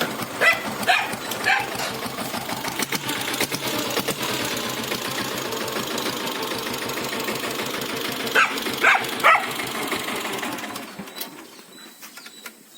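A dog barks three times near the start and three times again about eight seconds in, over the steady clatter of a Royal Enfield Taurus's single-cylinder diesel engine. The engine sound fades away near the end.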